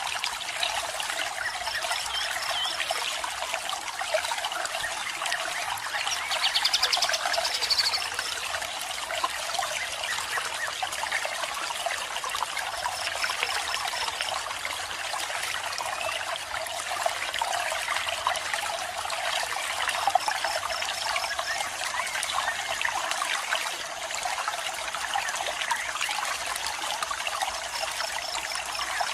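Running water, an even trickling rush. A short high trill repeats about every six or seven seconds, and a louder high call rises about six seconds in.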